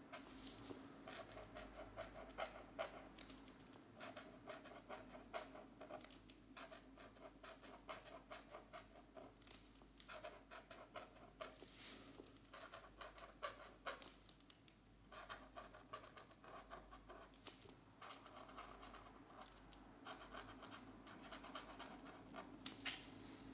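Faint scratching of felt-tip markers on a colouring-book page, filling in with quick back-and-forth strokes in runs of a few seconds broken by short pauses.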